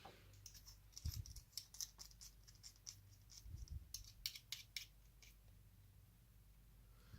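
Faint metallic clicks and scratching of small lockpicking tools (a lockpick-pen short hook and tension wrench) being handled and fitted to a padlock, in an irregular run of small ticks for a few seconds.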